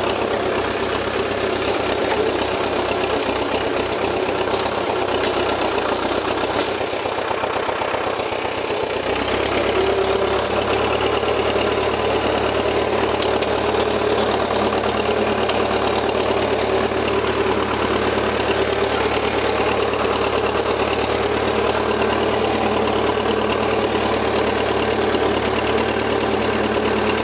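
Valmet 86 ID tractor's diesel engine running steadily while working with a front blade through brush. The engine note dips briefly about eight seconds in, then carries on evenly.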